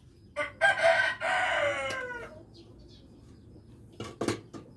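A rooster crowing once: a loud call of about two seconds starting about half a second in, its pitch falling away at the end. A few short clicks follow near the end.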